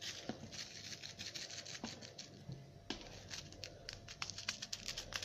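Small plastic packet of sugar sprinkles being shaken and tapped over a pie's filling: a quick run of faint ticks and rustles.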